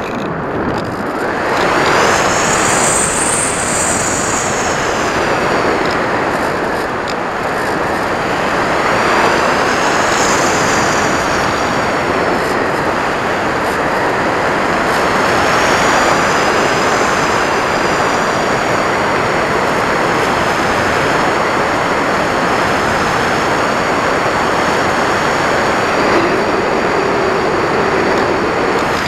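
Sound from the onboard camera of a Multiplex Cularis electric RC motor glider in flight: steady wind rush over the airframe, with the high whine of its electric motor rising and falling in pitch several times as the throttle changes.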